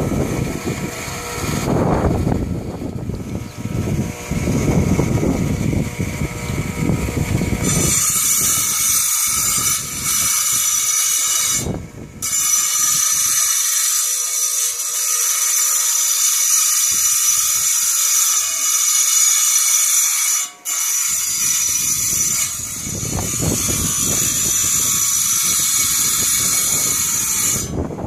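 Harbor Freight tile saw running and cutting rock: a mixed lower-pitched sound for the first several seconds, then a steady high whine from about eight seconds in, broken twice by brief dips.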